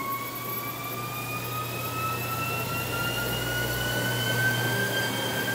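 NordicTrack X24 treadmill motor running quietly, its whine rising slowly and steadily in pitch as it speeds up, over a steady low hum.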